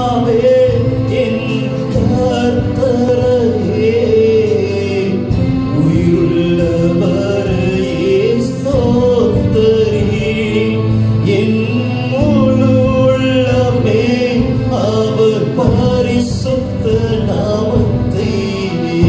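A man singing a slow Tamil Christian worship song into a microphone, holding long, wavering notes over instrumental backing with sustained chords.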